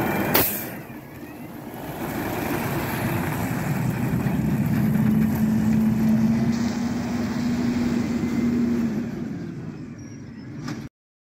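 A CNG-powered 2018 Autocar ACX Xpeditor garbage truck driving away. Its engine and drivetrain build up with a steady low hum, then fade as it pulls off. A sharp click comes about half a second in, and the sound cuts off abruptly near the end.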